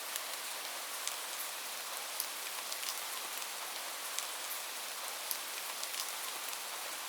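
Steady rain: an even hiss of falling rain with scattered sharp ticks of individual drops striking a surface.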